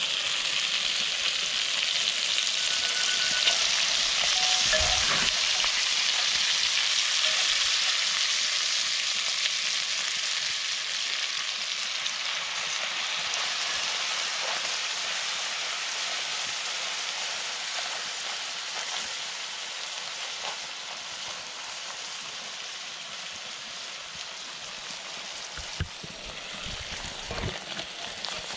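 Coconut milk poured into a hot cast-iron skillet of crayfish frying in oil over an open fire, sizzling hard. The sizzle builds over the first few seconds, then slowly dies down as the added liquid heats up.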